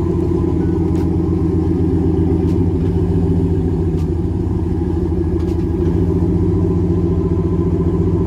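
Ram 1500's Hemi V8 idling steadily, heard from behind the truck near the exhaust. A faint tick recurs about every second and a half.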